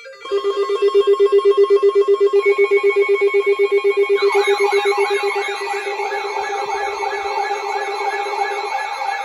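Electronic emergency-alert tones introducing the next warning: a buzzy, rapidly pulsing alarm tone, joined about four seconds in by a fast, repeating whooping sweep.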